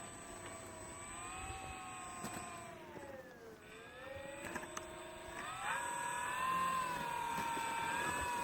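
Electric brushless motor and propeller of a P-47 model warbird whining, its pitch easing down to a low point midway, then rising sharply about five and a half seconds in as the throttle is advanced, and holding there.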